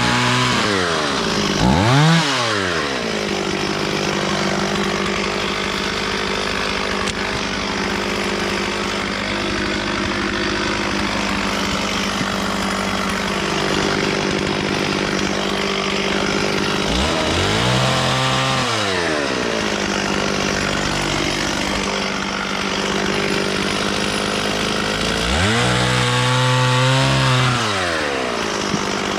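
Stihl 440 chainsaw's two-stroke engine running at a steady pitch while sawing wood. Three times the pitch sweeps up and back down as the throttle is opened and eased off.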